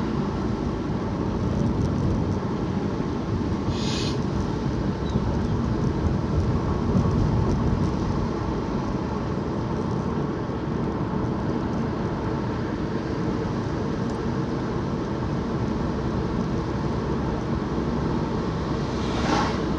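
Steady engine and road rumble of a vehicle on the move, heard from inside it, with one short hiss about four seconds in.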